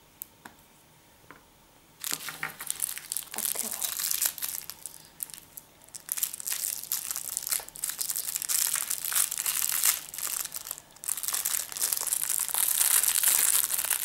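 Thin plastic toy bag from a Kinder Surprise capsule crinkling and tearing as it is handled and opened. It starts about two seconds in, with many quick crackles, and is loudest near the end.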